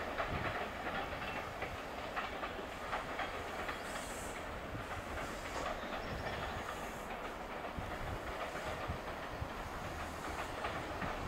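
Passenger coaches of a departing train rolling over the station's tracks and points, their wheels clicking irregularly over rail joints at a steady, moderate level.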